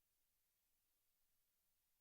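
Near silence: digital quiet between sound effects.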